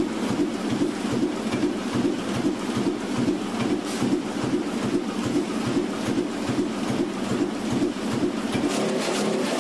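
Sheet-fed banknote printing press running, a steady rhythmic mechanical clatter with a regular beat as the printed sheets feed through its rollers.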